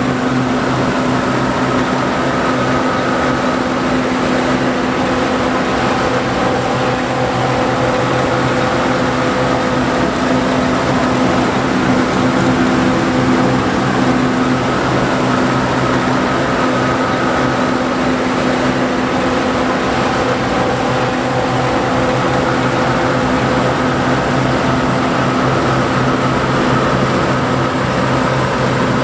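John Deere 4425 combine running steadily while harvesting wheat: an engine hum with stacked steady tones under the rushing whir of the threshing machinery, even in pitch and level throughout.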